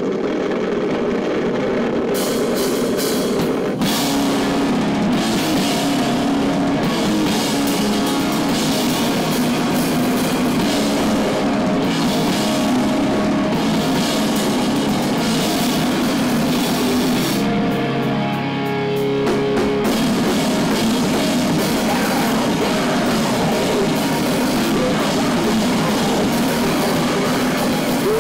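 Live heavy rock band playing loud, with distorted electric guitars and a drum kit. The cymbals come in about two seconds in. The drums drop out briefly about two-thirds of the way through while held guitar notes ring, then the full band comes back in.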